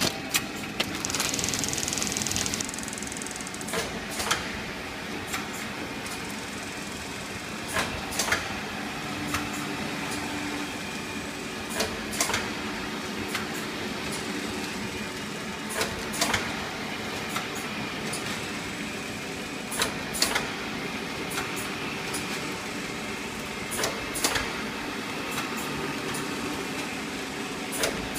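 MC Pak vertical form-fill-seal packaging machine for liquids running with a steady hum, with a pair of sharp clacks about every four seconds as it cycles. A brief hiss about a second in.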